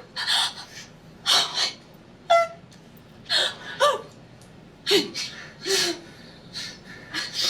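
A person gasping and whimpering in short breathy bursts, roughly one a second, some with a brief rising or falling pitch.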